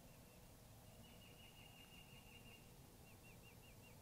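Near silence with a faint small bird calling: a fast run of short, high chirps about a second in, then a slower run of hooked chirps near the end.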